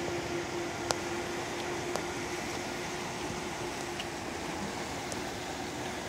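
Steady rush of a fast mountain river over rocks, with a steady low hum under it and a few faint clicks in the first two seconds.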